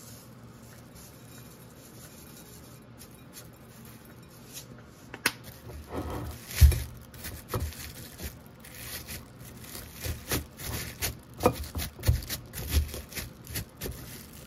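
Food preparation by hand: a run of irregular knocks and taps with scraping and rustling, starting about five seconds in after a quiet stretch.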